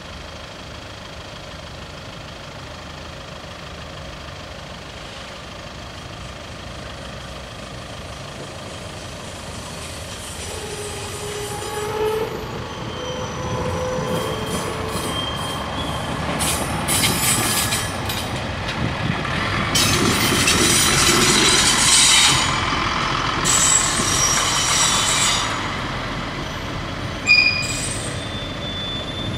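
A BR 504 single-car railcar approaches and runs over the level crossing: its engine and wheel noise grows from about ten seconds in, with a brief tone near twelve seconds, and is loudest from about seventeen to twenty-five seconds with rattling over the track. It fades as the train moves off. A short sharp clank near the end comes as the crossing's barrier arms start to lift.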